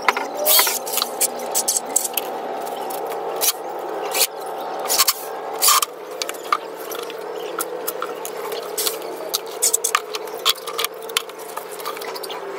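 Hands working on a wooden pallet-wood frame on a workbench: irregular scratching, rubbing and light knocks, over a steady faint hum.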